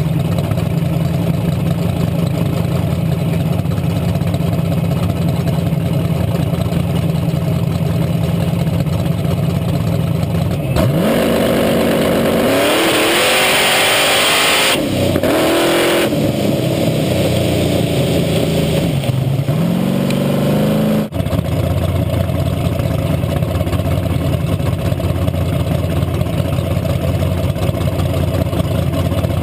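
Drag car's engine idling steadily, then revved hard from about 11 s in, its pitch climbing and stepping, with a loud rushing hiss of spinning rear tyres on the wet strip for a few seconds. The revving stops abruptly about 21 s in and the engine idles again.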